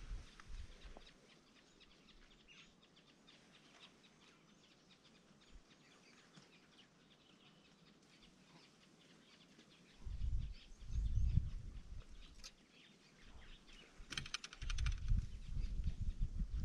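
Faint, scattered bird chirps. Low rumbles hit the microphone about ten seconds in and again near the end, and a quick rattle of clicks comes just before the second rumble.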